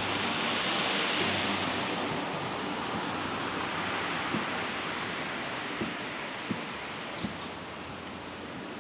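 Sea surf washing onto the shore, a steady rush that swells near the start and slowly eases, with a few light knocks in the second half.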